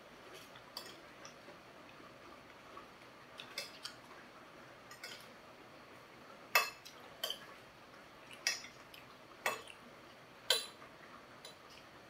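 Metal fork and spoon clinking and scraping against a ceramic plate while eating. There are scattered sharp clinks, the loudest five in the second half about a second apart.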